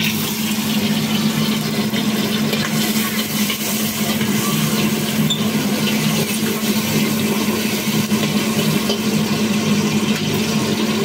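Shrimp frying in oil in a wok over a gas burner: a steady rushing sizzle and burner roar, with a steady low hum underneath.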